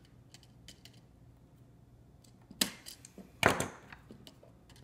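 Pliers closing the hook of a copper wire around an outlet's terminal screw: a few light ticks, then two sharp metallic snaps about a second apart.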